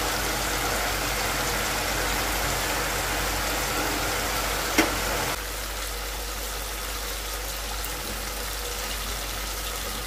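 Onion, tomato and green chilli frying in hot oil in an aluminium pressure cooker: a steady sizzle. A single sharp click comes just under five seconds in, and the sizzle turns quieter soon after.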